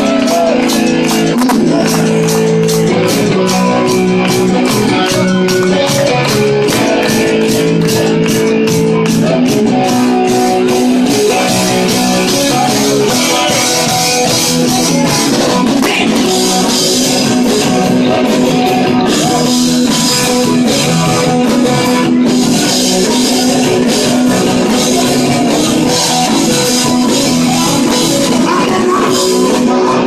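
Live rock band playing loud: strummed acoustic guitar, drum kit and sung vocals. For the first ten seconds or so, handclaps keep time at about two a second, then the drums and strumming grow denser and brighter.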